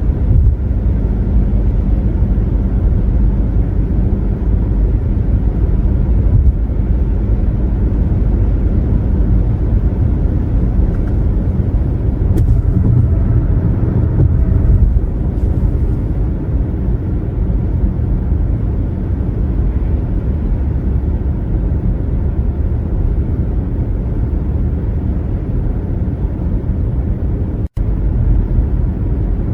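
A car cruising on a highway: steady low rumble of tyre and road noise. The sound cuts out for an instant near the end.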